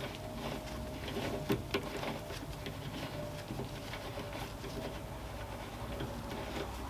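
Warco WM180 mini lathe running, with a steady motor hum and a held mid-pitched tone, scattered with light irregular ticks and clicks.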